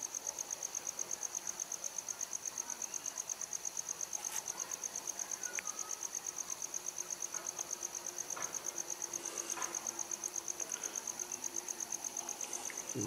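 A cricket chirping steadily in a fast, even pulse, about seven pulses a second, with a few faint clicks and rustles of wire and tape being handled.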